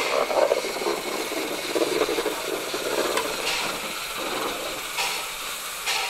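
Small Hanomag-built steam tram locomotive rolling slowly, with steam hissing and its running gear rattling. A few sharp clicks come in the second half.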